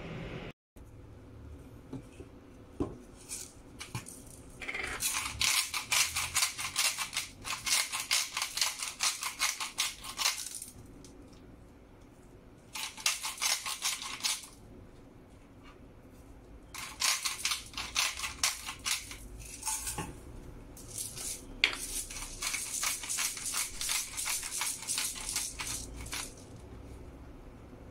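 Hand-twisted grinders grinding salt and black peppercorns: four spells of rapid gritty clicking, each a few seconds long, with short pauses between.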